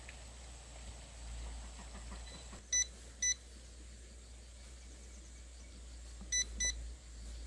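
Two pairs of short, high electronic beeps, about three seconds apart, over a low steady hum.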